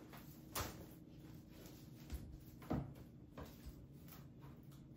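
Three soft knocks and clunks, like household handling, about half a second, nearly three seconds and three and a half seconds in, over a faint steady low hum.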